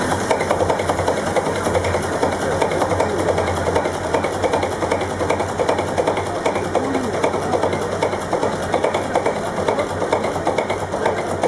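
Old multi-cylinder marine diesel engine running steadily with a rapid, even mechanical clatter.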